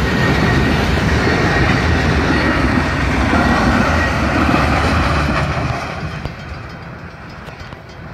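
Loaded rock hopper cars of a Union Pacific freight train rolling past, wheels rumbling and clattering on the rails. The noise drops off about six seconds in as the last car passes and the train moves away.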